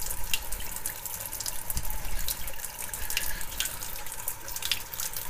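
Kitchen tap running steadily into a sink, the stream splashing on a chicken carcass, with many small irregular splashes and drips.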